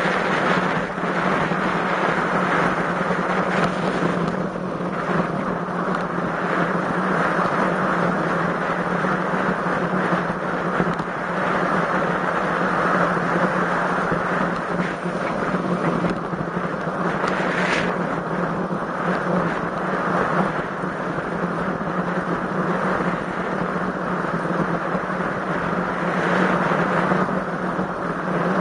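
Steady wind rush over the microphone of a ride camera on a road bike in strong wind, with a constant low hum underneath and small swells in level.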